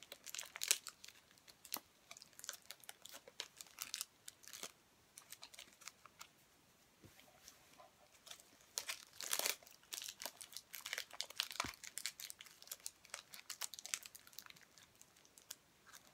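Wrapper crinkling and rustling as a small bath product is unwrapped by hand, in irregular crackly bursts, with a quieter stretch in the middle and a louder spell of crinkling about nine seconds in.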